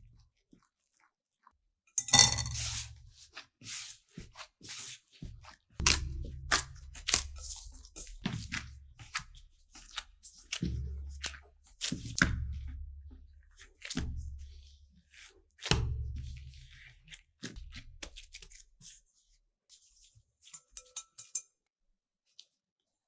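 Soft yeast dough being kneaded by hand on a work surface: about seven dull thumps a couple of seconds apart, with sticky tearing and crackling sounds as the dough is stretched and pulled between them.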